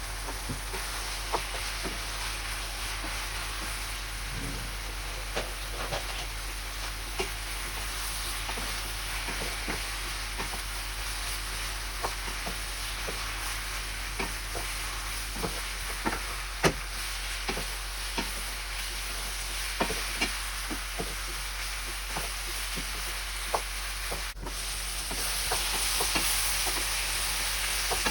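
Bottle gourd sabzi sizzling and frying in a pan while being stirred, with scattered short clicks of the spatula against the pan. The sizzle gets louder about 24 seconds in.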